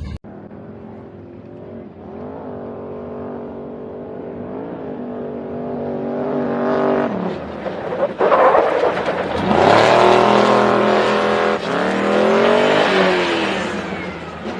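Off-road vehicle's engine revving, building louder over several seconds, then a few hard revs rising and falling in pitch with a loud rushing noise over them.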